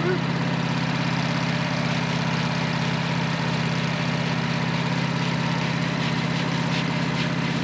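Wood-Mizer band sawmill running steadily, its engine holding an even drone.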